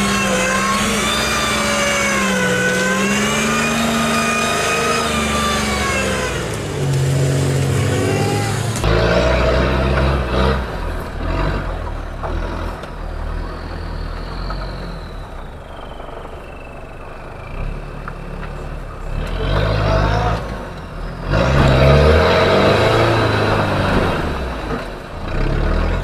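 Engine of an off-road 4x4 on big mud tyres held at high revs, its pitch wavering, as the truck churns in a muddy creek. After a cut about nine seconds in, a vehicle engine rises and falls as it drives through woods, with a slowly falling whine in the middle.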